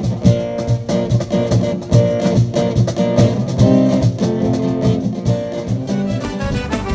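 Brazilian carnival band playing an instrumental marchinha passage without singing: held notes over a steady beat with percussion strokes.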